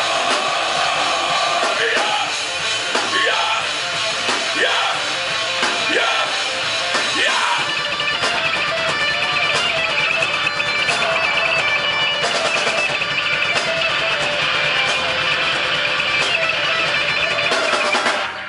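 Live rock band playing, with electric guitar prominent and sliding notes in the first half; the music gets denser about halfway through, then cuts off suddenly near the end.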